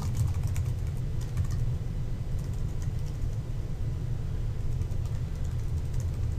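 Computer keyboard typing in scattered runs of keystrokes, faint over a steady low rumble.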